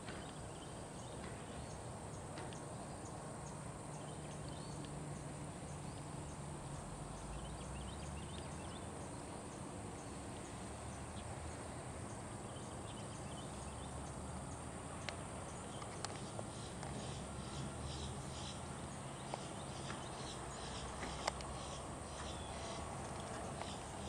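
Hoofbeats of a horse trotting on soft sand arena footing, faint and muffled, with a steady high-pitched buzz behind them and a few sharper clicks in the second half.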